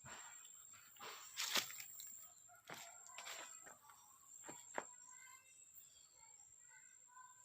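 A handful of sharp knocks, the loudest about a second and a half in, with short bird chirps in the second half.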